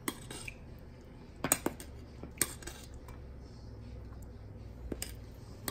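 A metal spoon clinking a few times against a pot and drinking glasses as tapioca pearls are scooped and spooned into drinks, with a quick double clink about a second and a half in, over a faint low hum.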